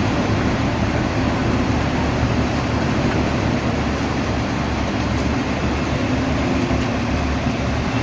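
Heavy construction machinery's diesel engine running steadily, a constant low hum under an even mechanical noise.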